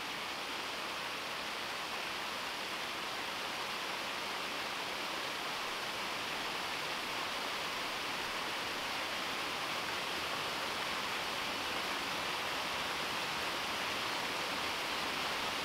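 Small rock waterfall spilling into a pond: a steady rush of falling water splashing over the rocks.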